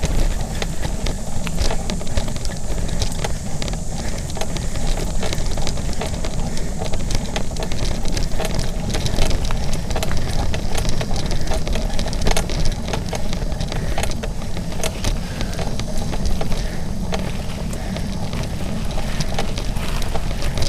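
Mountain bike ridden over a dirt singletrack trail: a steady low rumble of the tyres rolling, with frequent sharp clicks and rattles from the bike over bumps in the trail.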